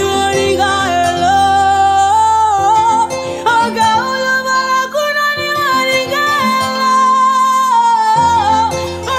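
A song with a woman singing long, gliding melodic lines over a backing with a steady bass. The bass drops out about five seconds in and comes back near the end.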